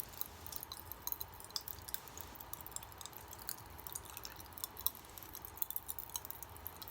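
Popping candy crackling in the mouth: a rapid, irregular stream of tiny pops and clicks as the carbonated candy bursts while being eaten.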